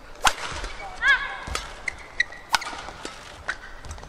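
Badminton rally in an indoor arena: sharp racket strokes on the shuttlecock, the first from an overhead jump smash, then several more, with a loud short shoe squeak on the court floor about a second in and smaller squeaks later.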